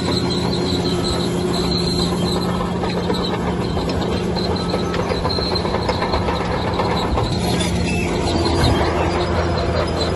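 Heavy diesel engine running steadily under load, with high-pitched, on-and-off squealing and clanking typical of steel crawler tracks, as from a bulldozer at work.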